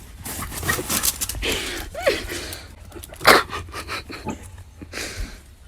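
A dog panting hard, with a louder rough burst of noise a little past halfway.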